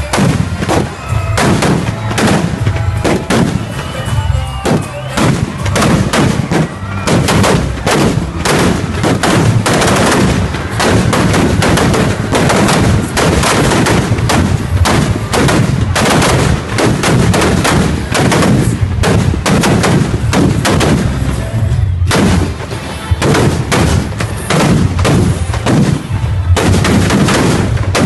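Firecrackers packed into a Ravana effigy going off in a rapid, continuous string of sharp bangs, many a second, with no pause.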